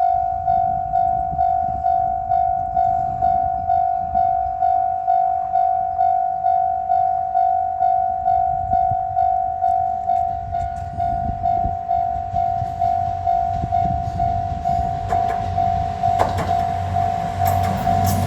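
Railway level crossing warning bell ringing in a steady, even repeating ding. Near the end a KiHa 200 diesel railcar approaches, its engine rumble and wheel clacks growing louder.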